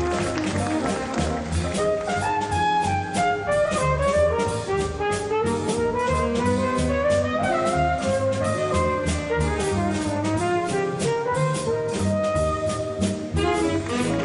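Big band playing a jazz waltz, with a flugelhorn taking a solo line over the band and rhythm section.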